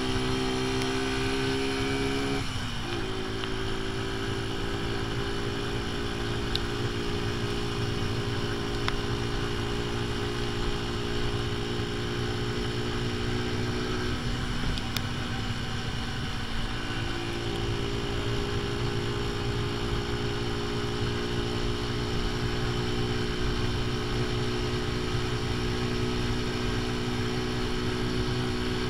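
AJS Tempest Scrambler's single-cylinder engine running under way at a steady cruise, its ignition timing set advanced, too far by the rider's own reckoning. The engine note dips briefly and picks up again about two and a half seconds in, and it thins for a few seconds around the middle before returning.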